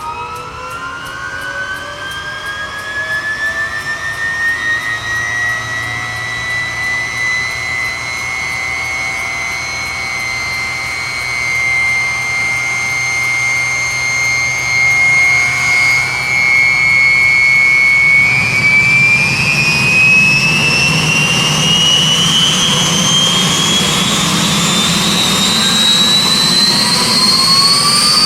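UH-1H Huey's Lycoming T53 turboshaft engine spooling up during start: a rising turbine whine that levels off, then climbs again about two-thirds through as a deeper rumble joins in and it gets louder.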